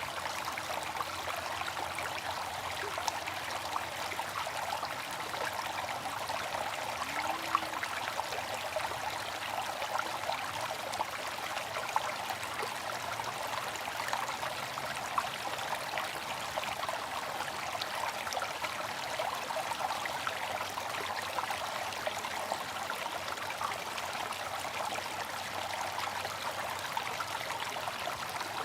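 Water from a bamboo fountain trickling and splashing steadily, with scattered small drips standing out now and then.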